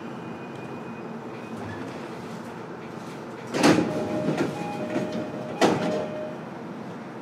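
Inside an E233-series electric commuter car: two heavy knocks about two seconds apart, each followed by a brief ringing tone, over the steady hum of the car's equipment. These are typical of the sliding doors shutting during a station stop.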